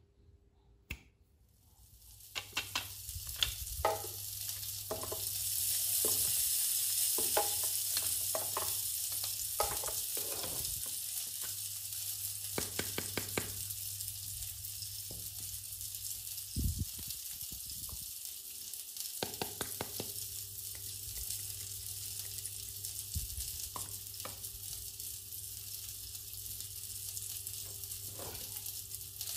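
A steady grill sizzle, a sound effect for the toy barbecue rather than real cooking, coming in about two seconds in and holding. Over it, plastic toy food skewers click and tap as they are laid on the plastic grill, with a couple of duller knocks.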